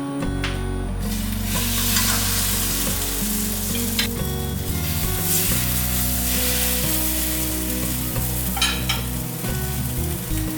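Food sizzling as it fries in a hot pan, the sizzle swelling about a second in, with a few short clicks about four and nine seconds in.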